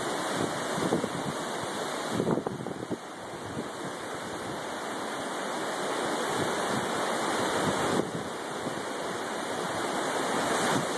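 Steady rushing of a river in flood, its fast, churning water running high after heavy storm rain.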